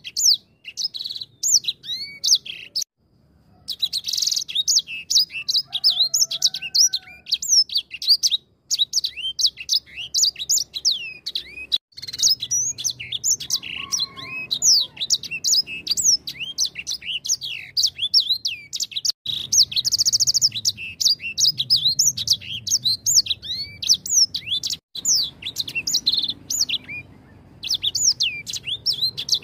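Edel sanger (grey singing finch) singing a long, fast twittering song of high chirps and trills, broken by a few brief pauses.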